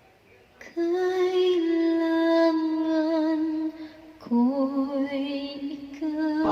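A woman singing a cappella with no accompaniment, holding long notes with vibrato in two phrases and a short breath between them; she begins about a second in.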